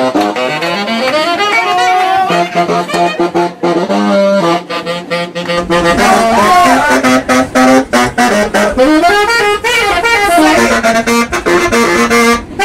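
Several saxophones, a baritone among them, playing jazz together, the low saxophone holding long steady notes under the moving lines of the others. A low rumble joins underneath about halfway through.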